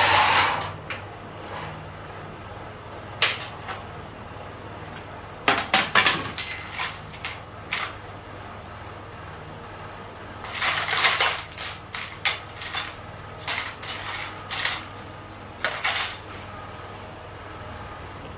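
Small metal bolts, nuts and fittings clinking and knocking together as they are handled and sorted in a plastic parts tray: scattered sharp clinks, coming in clusters about six seconds in, around eleven seconds in and again over the following few seconds.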